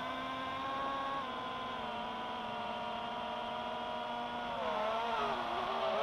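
iFlight DC5 FPV drone's motors and propellers whirring steadily. The pitch dips and comes back up about five seconds in as the throttle changes.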